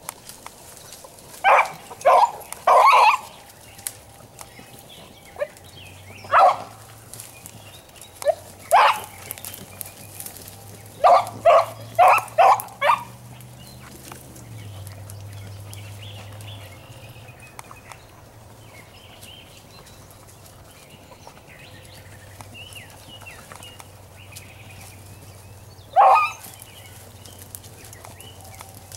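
Short, sharp dog barks in clusters: a few in the first seconds, single barks after that, a quick run of five about halfway through, and one more near the end after a long pause.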